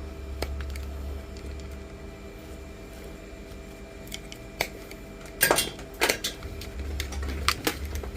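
Hand cutters snipping through cable, with scrap metal clinking and clattering. The sharp clicks get louder and closer together from about halfway through.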